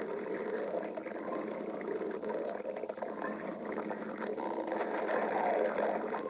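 A person's stomach growling: a continuous gurgling rumble that wavers in pitch, getting a little louder in the second half.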